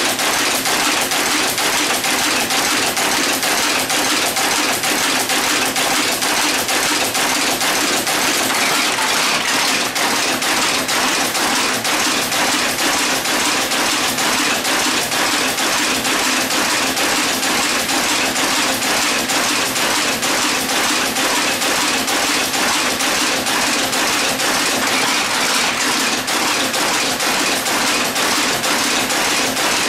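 Monotype composition caster running, casting type from molten antimony-tin type metal, with a steady, fast, unbroken mechanical clatter.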